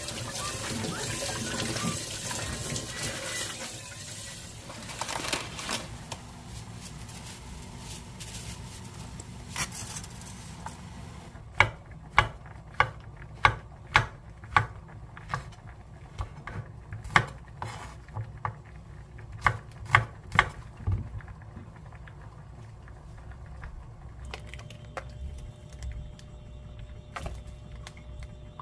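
Water running from a tap into a sink, which stops after about five seconds. Later a series of about a dozen sharp knocks follows, irregularly spaced about half a second to a second apart.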